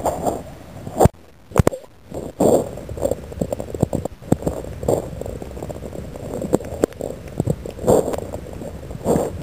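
Muffled underwater noise picked up by a camera in a waterproof housing: an irregular gurgling rumble of moving water, broken by sharp knocks and clicks, with a strong one about a second in and another near the end.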